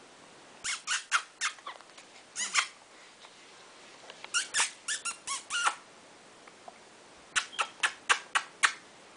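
Short, sharp squeaky mouth sounds in quick runs of three to six, coming in four bursts with quiet gaps between.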